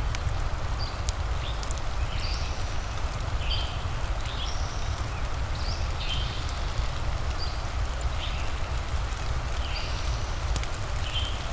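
Steady rain ambience with a strong low rumble, scattered sharp crackles, and short high chirps that repeat about once a second.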